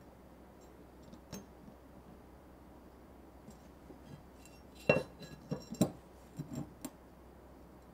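A flat steel bar being handled on a wooden workbench. There is a single knock about a second in, then a cluster of metallic clinks and knocks between about five and seven seconds in.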